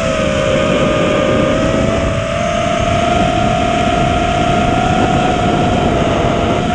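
FPV racing drone's motors and propellers whining with one steady pitch that creeps slowly upward, over a rough rushing noise.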